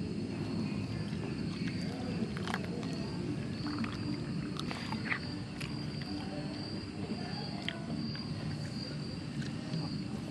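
Crickets chirping steadily in a high, pulsing trill over a steady low rumble. A metal spoon clinks a few times against a metal camping pot of soup.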